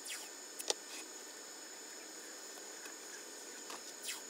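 Green FrogTape masking tape being pulled off the roll twice, each pull a short falling rasp followed by a sharp click as the strip comes free. The first click, about a second in, is the loudest.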